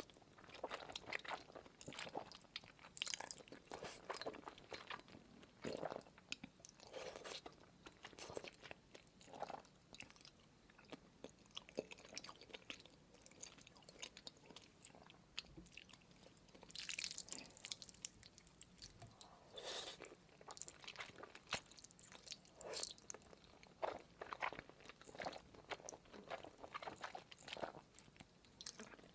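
Close-miked chewing of Korean hot noodles: wet mouth sounds and bites coming in short, irregular bursts.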